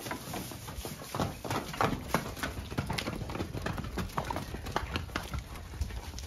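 Hooves of a horse and a small pony clip-clopping in an irregular clatter as they walk and trot out of the stable.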